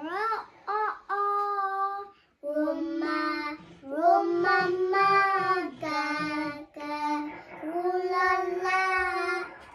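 A young child singing a tune in long held notes that slide up and down in pitch, with a couple of short breaks for breath.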